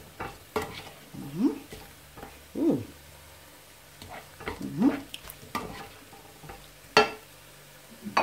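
A plastic cooking spoon stirring shrimp frying in a nonstick pan: a run of separate scraping strokes against the pan over a soft frying sizzle, with a sharp knock about seven seconds in.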